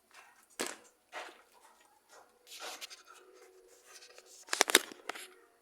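Hard parts of a washing machine being handled during disassembly: a few short scrapes and rubs, then a quick clatter of sharp clicks and knocks near the end.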